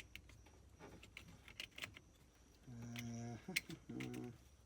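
Small scattered clicks and rattles of plastic trim and wiring being handled on a steering column. In the second half a man makes two wordless hums, the first held steady, the second shorter and wavering.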